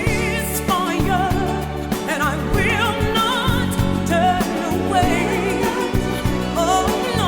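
Background song: a singer's voice with vibrato over a steady bass line and beat.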